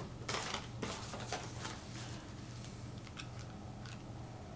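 Handling noise from unpacking: a brief rustle of plastic packaging about half a second in, then scattered light clicks and taps as a small plastic remote control is handled, over a faint steady low hum.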